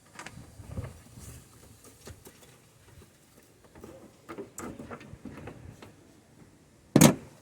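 Hand work in a car's engine bay: scattered light clicks and small knocks of tools and plastic parts being handled, with one loud knock about seven seconds in.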